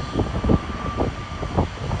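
Wind buffeting the microphone in irregular gusts over the low drone of a twin-turboprop airliner on final approach, with a thin steady high tone running through it.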